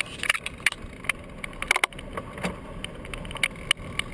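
Fat tire bike rolling over dune sand: irregular sharp clicks and rattles from the bike over a steady hiss.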